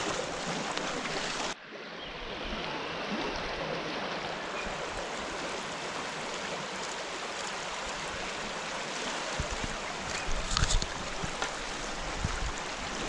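Shallow river water rushing steadily over a riffle, with an abrupt break about a second and a half in. A few brief louder splashes or knocks come about ten seconds in.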